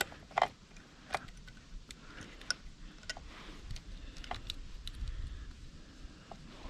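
Scattered small metallic clicks and ticks of a chainsaw's saw chain and bar being handled as a new chain is fitted, irregularly spaced rather than in a rhythm.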